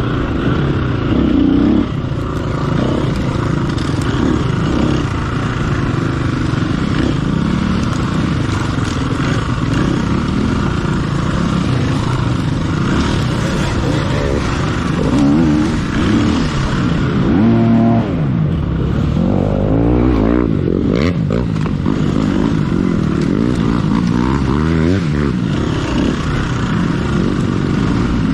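Off-road dirt bike engine heard from on board, its pitch rising and falling constantly as the throttle opens and closes.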